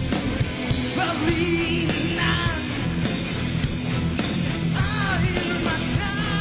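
Live rock band performance: a male lead singer's wavering sung lines over drums, bass and guitars.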